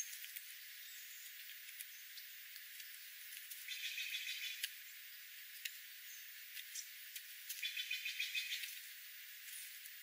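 Jays giving two harsh, rapid rattling calls of about a second each, with scattered light ticks of birds pecking at seed on gravel.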